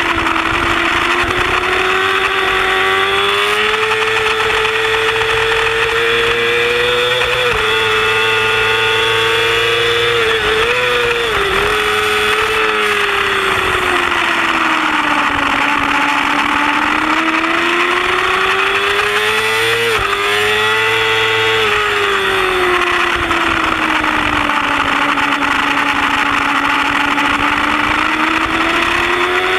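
Yamaha YZF-R6 inline-four engine running hard at high revs, heard from a camera mounted on the bike. The pitch climbs under acceleration and drops abruptly at gear changes about seven and twenty seconds in. It wavers through a quick run of shifts around ten to eleven seconds in, and sinks and rises again through the leaned-over corners.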